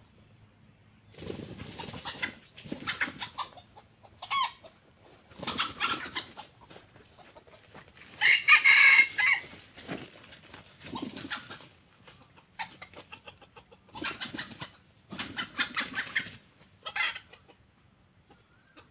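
Junglefowl flapping their wings in repeated bursts and squawking, as if struggling. The loudest squawk, harsh and drawn out, comes about eight seconds in.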